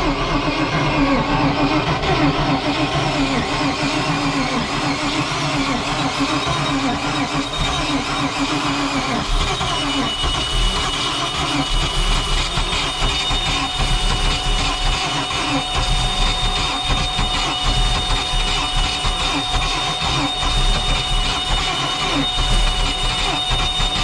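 Carbureted inboard boat engine running steadily, its pitch wavering a little, with a thin high whine joining partway through.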